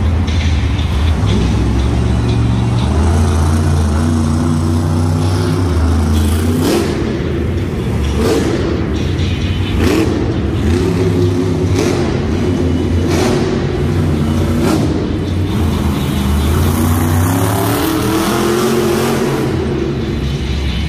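Monster truck's supercharged V8 engine revving up and down over and over, loud throughout.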